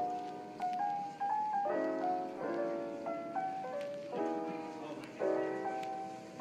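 Background music: soft piano chords struck every second or so, each fading, with a simple melody over them.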